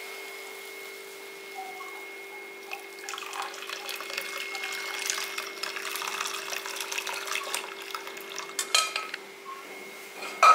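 Hot jaggery syrup pouring from an aluminium pot through a steel mesh strainer into a bowl of coconut milk, trickling and splashing for about five seconds over a steady background hum. Then a click and a metal knock as the pot and strainer are set down.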